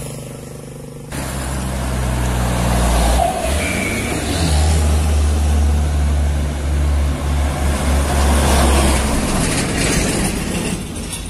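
A diesel cargo truck's engine running loud and low as the truck comes down through the bend and passes close by, then fading near the end.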